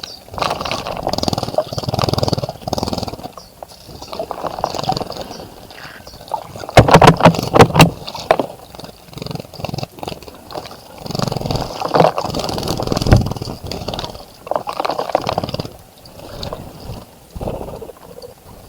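Birds bathing in a bird bath: repeated bursts of splashing in shallow water, coming in spells of a second or two with short gaps. The loudest is a quick run of sharp splashes about seven seconds in.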